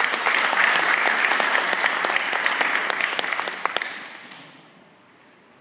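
Congregation applauding at the end of a sermon, the clapping thinning out and dying away about four seconds in.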